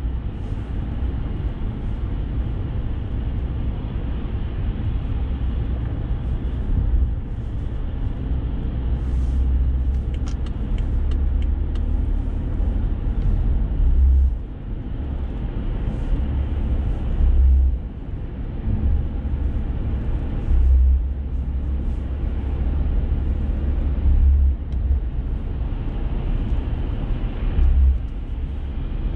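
Steady low road and engine rumble inside a moving car, with the rumble swelling briefly every few seconds.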